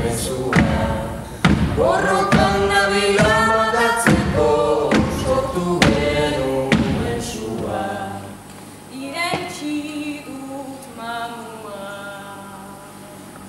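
Mixed group of two female and two male voices singing together, with a steady thump on the beat about once a second. The thumps stop about seven seconds in, and the voices finish softly on held notes that fade out.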